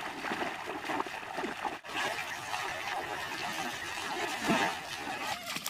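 Water splashing and trickling, irregular and continuous, with a brief break about two seconds in.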